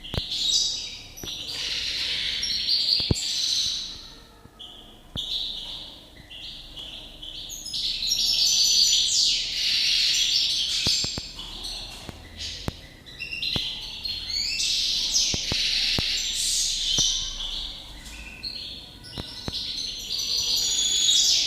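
European goldfinch singing: long, rapid, liquid twittering phrases that swell and fade with short pauses between them, with a few faint clicks scattered through.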